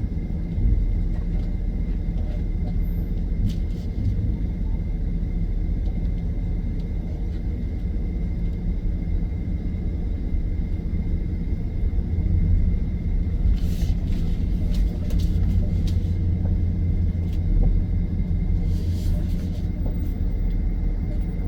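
A car driving: a steady low rumble of engine and road noise that swells a little about halfway through.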